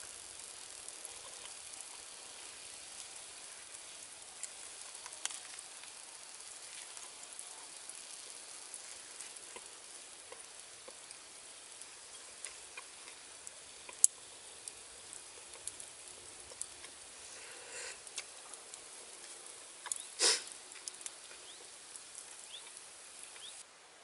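Small stick campfire crackling: a steady hiss with scattered sharp snaps and pops, and one louder burst near the end.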